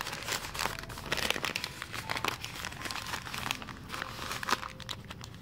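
Newspaper crinkling and crumpling as hands fold and press it into a wrapped bundle, a dense run of crackles that thins out about halfway through.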